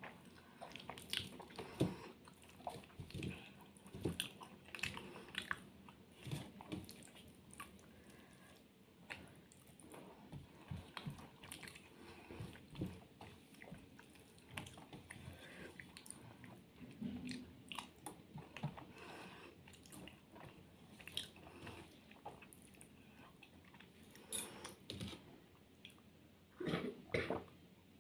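Close-up chewing of a person eating rice and curry by hand: soft, irregular wet mouth clicks and smacks.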